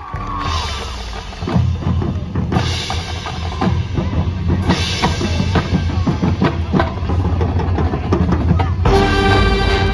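Marching band drumline playing: bass drums and snare drums with a few cymbal crashes, and the brass section coming in near the end.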